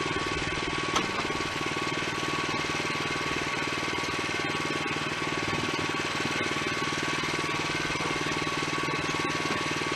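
Wood-Mizer LX25 portable sawmill running steadily: the engine's fast, even pulsing with a thin steady whine over it, and one sharp click about a second in.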